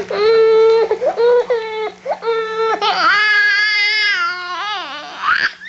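Baby crying: a run of short cries, then one long wail from about three seconds in, ending in a short rising cry.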